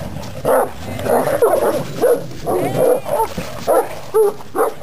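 Two large dogs fighting, snarling and barking in rapid short bursts.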